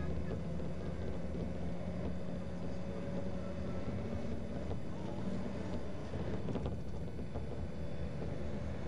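Steady engine and road noise of a moving vehicle heard from inside the cabin, with an even engine hum holding its pitch. A brief rattle comes about two-thirds of the way through.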